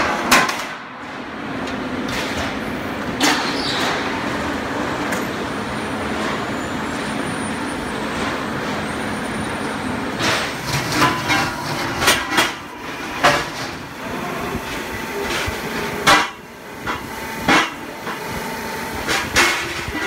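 Steady running of a highway guardrail production machine, with sharp metal clanks of steel W-beam guardrail panels being handled and stacked. The clanks come irregularly, a few early on and more often in the second half.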